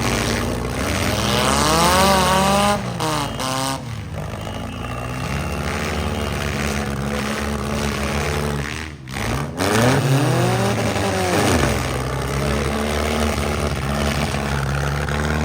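Several demolition derby cars' engines running at once. One revs up sharply about a second and a half in, and another revs up and falls back about ten seconds in.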